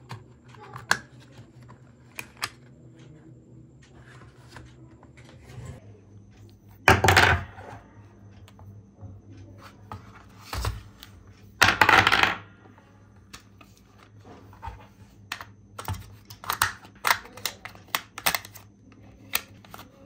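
A plastic toy RC car being handled and its battery compartment opened: scattered clicks and taps, two louder rustling handling noises of under a second each about 7 and 12 seconds in, and a quick run of clicks near the end.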